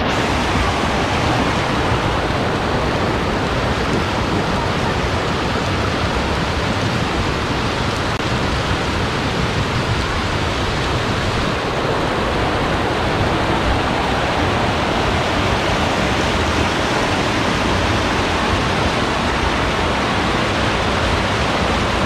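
Floodwater rushing in one steady, loud, even rush of water with no breaks.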